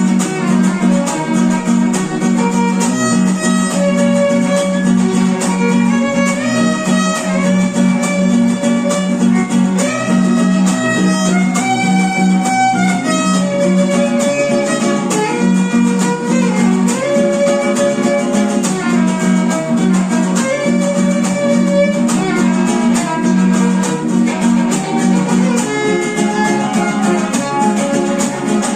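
Instrumental music: a melody line that steps and glides in pitch over strummed strings, with a steady low drone.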